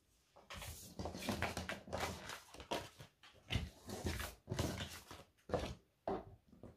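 Oracle and tarot cards being slid across a tabletop and gathered into a stack: a run of irregular short rustles, scrapes and light taps of card on card.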